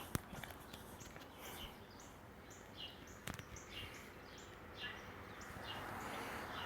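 Faint bird chirps, short and repeated about twice a second, over low hiss on a quiet phone line, with one sharp click about three seconds in.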